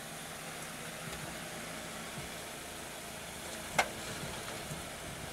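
Vehicle engine idling steadily under a low hiss, with one sharp click a little under four seconds in.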